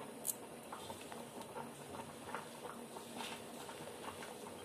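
A hand mixing gram flour into grated pumpkin and potato in a metal bowl: faint, irregular soft rustling and patting as the fingers squeeze and turn the mixture, with one brief sharper click near the start.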